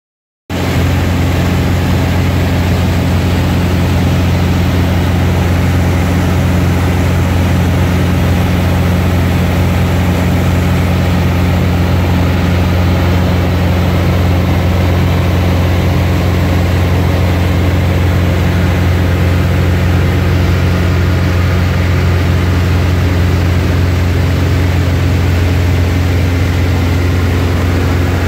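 Light single-engine propeller airplane's engine and propeller droning steadily in cruise flight, heard from inside the cabin.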